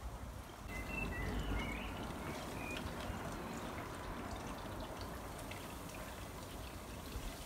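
Garden ambience: wind rumbling on the microphone, with a few short bird chirps about a second in.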